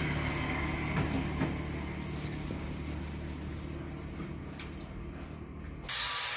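Light taps and scrapes of a small knife trimming a carved rosewood gourd, a few sharp clicks over a steady low hum. About six seconds in, the sound cuts abruptly to a steady hiss.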